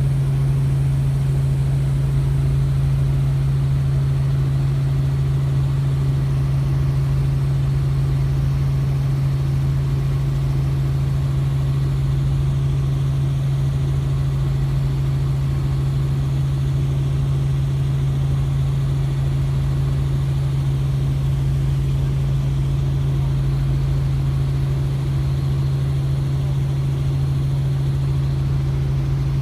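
Helicopter running steadily, an unchanging low engine and rotor drone with one strong deep hum.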